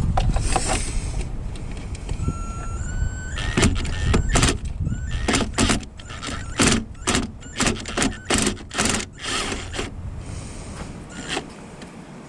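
A tool on a long extension working the headlight's lower Torx mounting bolt. There is a brief rising whine, then a run of sharp metallic clacks at about two a second.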